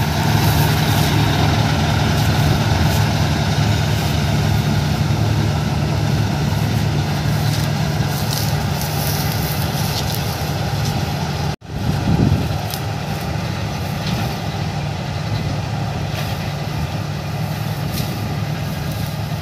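Kartar 4000 combine harvester's diesel engine and threshing machinery running steadily while it cuts wheat. The sound drops out for an instant a little past halfway, then carries on.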